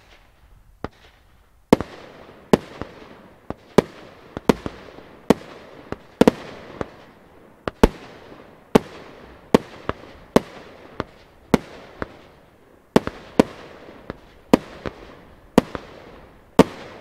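Broekhoff Crown Executive consumer fireworks battery firing a steady string of shots, a sharp bang a little more often than once a second, each trailing off in a fading hiss as the shell bursts.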